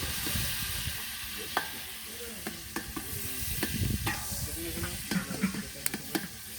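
Food being stirred in a cooking pot: a utensil scrapes and clicks against the pot over a steady sizzle.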